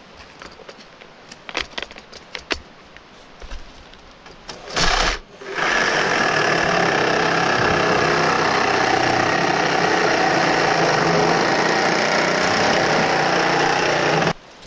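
Cordless reciprocating saw cutting through a burned trailer's rusted metal frame: a short burst about five seconds in, then a steady cut for about nine seconds that stops just before the end. Before it, light clicks and knocks of scrap being handled.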